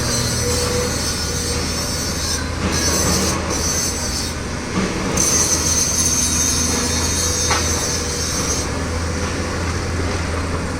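Heavy machinery running steadily with a low drone, joined by a high metallic squeal from about five to nine seconds in.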